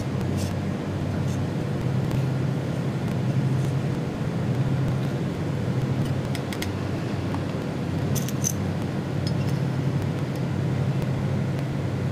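CNC machining center face-milling aluminium: steady machine running noise with a low hum and scattered sharp clicks, a cluster of them about eight seconds in.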